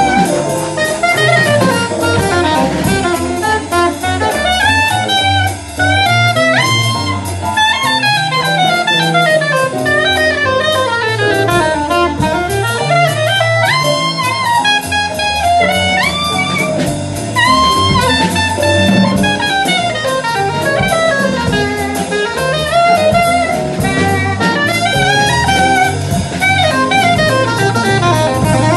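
Live jazz combo: a soprano saxophone solos in a fluid line of running, gliding notes, backed by drum kit and electric bass.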